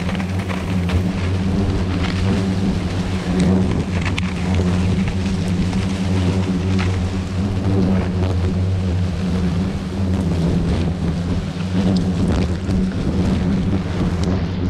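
A swarm of hornets buzzing close around the nest, a dense steady drone with a low hum and its overtone, broken by scattered light clicks.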